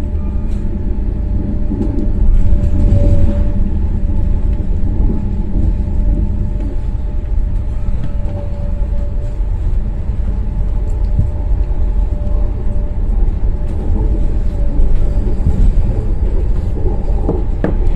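Steady low rumble inside a moving vehicle, with a faint steady hum over it.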